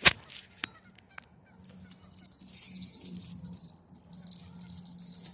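A sharp click, then a fishing reel rattling and rasping steadily as a hooked carp fights on the line.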